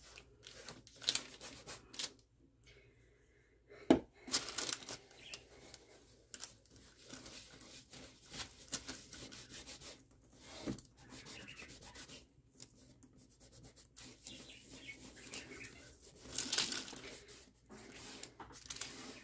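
Lint-free cotton cloth rubbing cold wax medium into a watercolour painting on a wooden cradle board: irregular soft rubbing strokes of cloth on waxed paper. There is one sharp tap about four seconds in.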